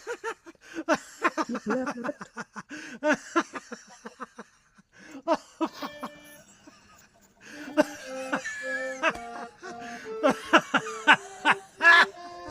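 Background music: a quick, choppy passage of short notes, then from about halfway through a melody of held notes over a beat.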